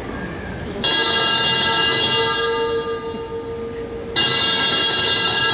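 A loud bell-like signal sounding twice. Each strike starts suddenly and rings on with many steady overtones that slowly fade.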